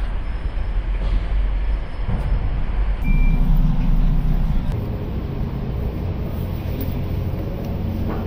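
Road traffic: vehicle engines running, with a deep rumble in the first two seconds and a steady engine hum after an abrupt change about three seconds in.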